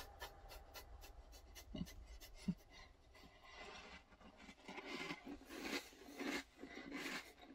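Soft scratchy rubbing and rustling, close to the microphone: a run of short scratches over the first few seconds, then slower, longer rubbing swells.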